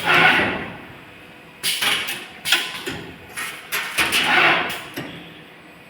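JM800 automatic wire harness processing machine running: a series of irregular sharp clacks, each with a short hiss of air, from its pneumatic stations.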